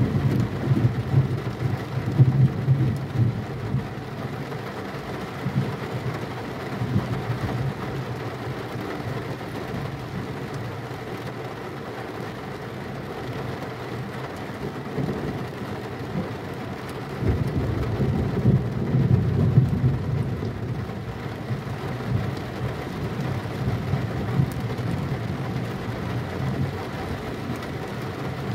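Thunderstorm: steady heavy rain with rolling thunder. There is a rumble in the first few seconds, then a sudden, louder clap about 17 seconds in that rolls on for several seconds.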